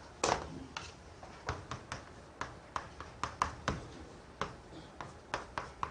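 A series of light, sharp clicks or taps at irregular intervals, over a dozen in all.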